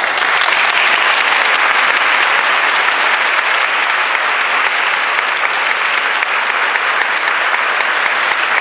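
Congregation applauding steadily, in approval of the candidate just accepted for ordination to the priesthood.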